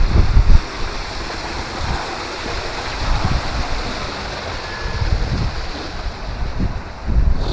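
Wind buffeting the microphone in low rumbling gusts, strongest at the start and again near the end, over a steady rushing hiss.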